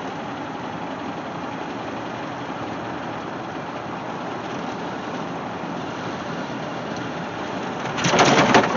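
Jeep Grand Wagoneer with an AMC 360 V8 running steadily while driving. Near the end, a louder burst of rattling from the loose sunroof cover.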